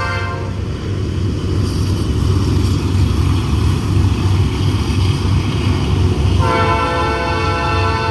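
Norfolk Southern diesel freight locomotive passing with a heavy low rumble. Its air horn, sounding a chord of several notes, cuts off just after the start and blows again as a long blast about six and a half seconds in.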